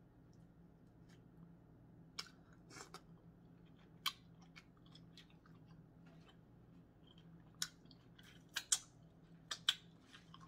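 Eating boiled crawfish close to the microphone: shells cracked and peeled apart by hand, and chewing, heard as scattered short sharp cracks and clicks, several in quick succession near the end, over a faint steady low hum.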